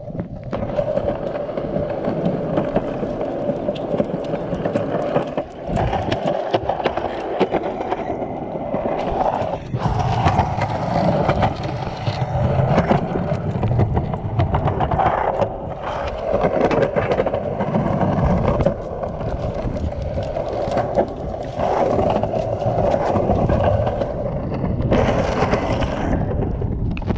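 Cruiser skateboard wheels rolling along a concrete sidewalk: a steady rumble with many small clicks.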